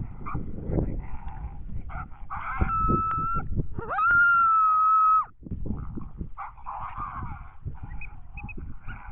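Coyote vocalizations from an electronic predator caller: raspy barking and growling, with two steady howl notes a little past a second apart. The second howl is the louder, rising in and then cutting off. Low rumbling runs underneath.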